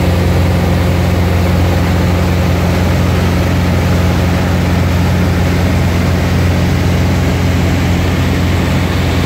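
Light single-engine propeller airplane's engine and propeller droning steadily in cruise flight, heard from inside the cabin. It is a loud, unchanging low hum with a haze of noise over it.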